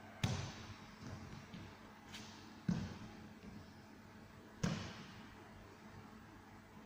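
Three sharp thuds against a training mat from a barefoot floor-exercise routine, about two seconds apart, each with a short echo in the hall, with a few fainter knocks between.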